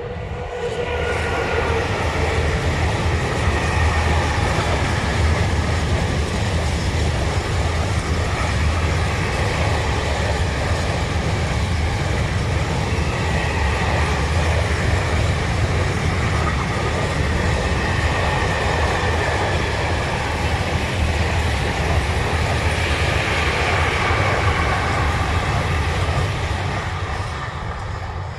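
A freight train of open-top wagons rolling past on the rails, with a loud, steady rumble of wheels on track. It builds up in the first second or two and dies down near the end as the last wagons go by.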